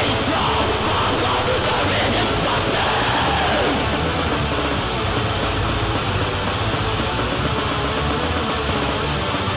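Black metal recording playing: a dense, steady wall of distorted electric guitar over a low bass line.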